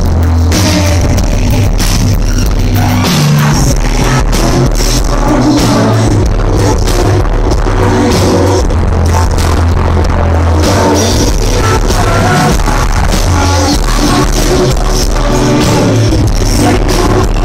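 Live indie band music played loud through a venue's PA, with guitar, keyboards and a sung vocal, recorded from the crowd; the deep bass is booming and overloading the recording.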